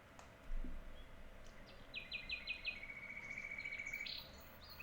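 Homemade Raspberry Pi alarm clock playing its wake-up alarm, a recording of birdsong: a run of five quick falling chirps about two seconds in, then a fast trill for about a second and a half. A soft bump about half a second in.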